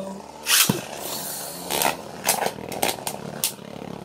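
A Beyblade Burst top is ripped from its launcher about half a second in and drops into a plastic stadium with a thump. Then two spinning tops whir and clack against each other several times.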